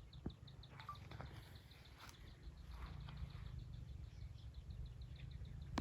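Quiet outdoor ambience: a rapid, high-pitched chirping trill of about ten chirps a second for the first second and a half, over a low steady rumble, with a few faint clicks.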